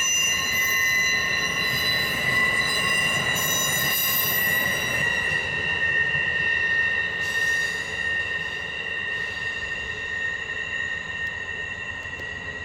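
Amtrak Pennsylvanian passenger train's steel wheels squealing steadily on the tight curve, several high pitches at once, fading slowly toward the end. The squeal comes from straight wheels grinding against the rails of a sharp curve.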